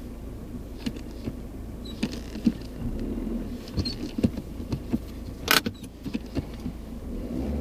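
Peugeot 207's 1.6 HDi four-cylinder turbodiesel running with a steady low rumble, under scattered sharp clicks and rattles and one louder crack about five and a half seconds in.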